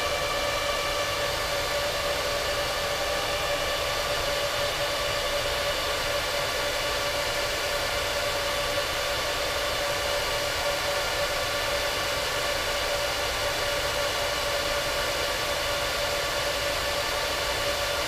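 Rack-mount server cooling fans running at full speed just after power-on, led by the disk shelf's stock fans, which are the loudest in the rack. A loud, steady whir with several steady whining tones on top.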